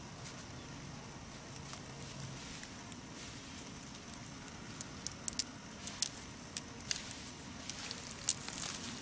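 Loose soil and dry leaf litter rustling as a hand scrapes dirt over a small hole. From about halfway through come scattered sharp crunches of dry leaves.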